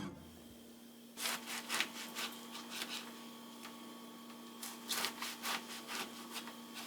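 Faint rubbing and brushing strokes, in two short clusters, over a steady low hum.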